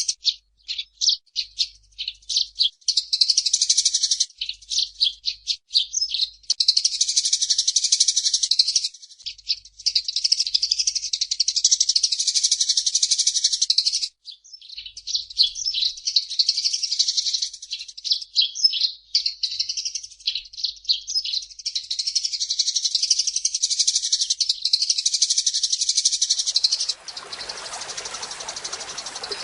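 Eurasian tree sparrows chirping and chattering rapidly in long busy spells with short breaks. About 27 seconds in, the chirping gives way to a steady rush of running water.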